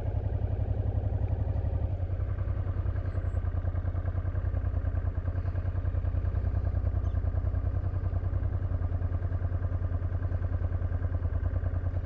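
Honda Transalp 700's twin-cylinder engine idling steadily, with an even low pulse.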